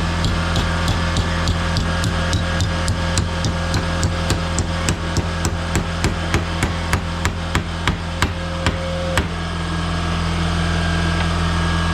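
Hand hammer striking metal in a steady series of blows, about three a second, stopping about nine seconds in. This is shaping a small aluminum support piece. A steady low hum runs underneath.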